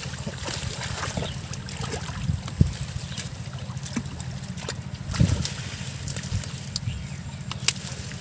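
Pond water splashing and trickling as hands work down through a floating clump of water hyacinth, with small clicks and rustles from the plants. There are two louder splashes, about two and a half and five seconds in.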